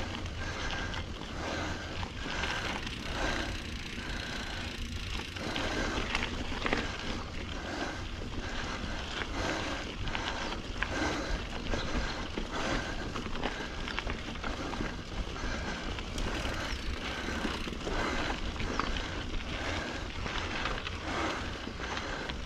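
Norco Sight A2 full-suspension mountain bike ridden along dirt singletrack: tyres rumbling steadily over the ground, with frequent knocks and rattles from the bike as it runs over bumps and rocks.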